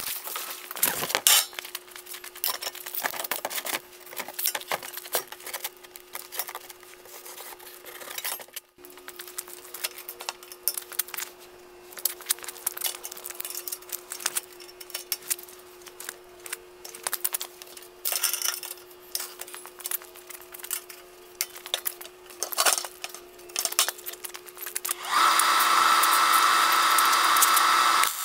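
Scattered clicks, taps and clanks of hand work on sheet metal and steel tubing. About 25 seconds in, a MIG welder strikes an arc and runs with a steady loud crackling buzz for about three seconds, welding the sheet-metal funnel to the steel frame.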